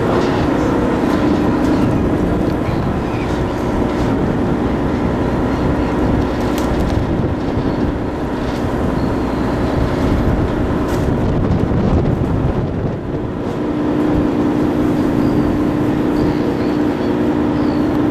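Charter boat's engine running with a steady drone.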